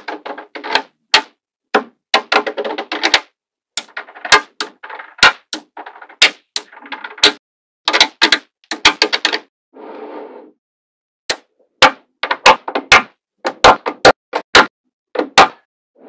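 Small magnetic balls clicking sharply as they snap together, in quick irregular clusters, with rattling as rows of balls shift against each other. About ten seconds in there is a softer stretch of rattling.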